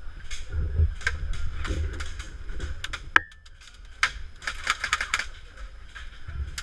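Airsoft guns firing: a scatter of sharp clicks, with a rapid run of them about four to five seconds in.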